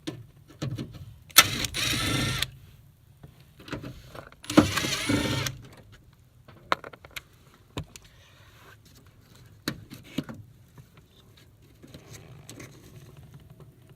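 Cordless drill driver running in two bursts of about a second each, backing out a door speaker's mounting screws. Small clicks and rattles of handling come between the bursts.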